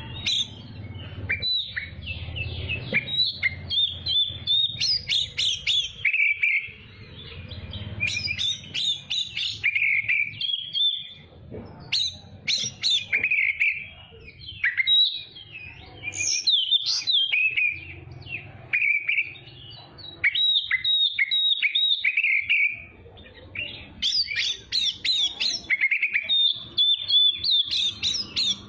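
Oriental magpie-robin (kacer) singing a loud, varied song of rapid chirps, trills and clear whistles, delivered in phrases separated by short pauses.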